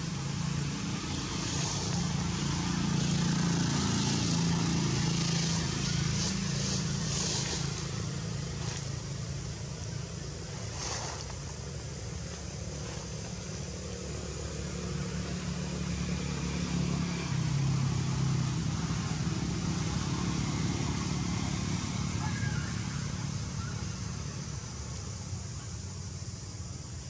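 Low, steady hum of motor vehicle engines, swelling twice as they pass, with a few brief crackles between about six and eleven seconds in.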